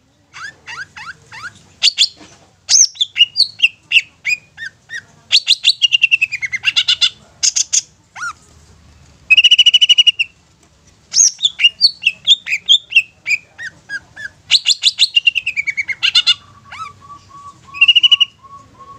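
Long-tailed shrike singing a varied run of quick chirps and downward-sliding whistles, broken by harsh buzzy phrases that slide down in pitch and one held buzzy note. Near the end it switches to a string of evenly spaced low pips, about three a second.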